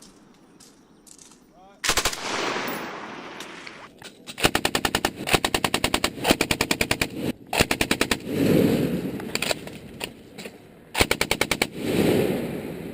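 Belt-fed machine gun firing bursts at about ten shots a second: a single report about two seconds in, then a long burst of roughly three seconds, a short burst right after it, and another short burst near the end, each followed by a long rolling echo.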